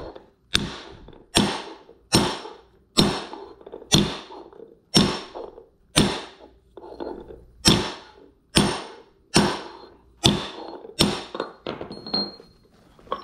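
Hammer blows on metal in a steady series, about one a second with a short pause midway, each with a brief metallic ring.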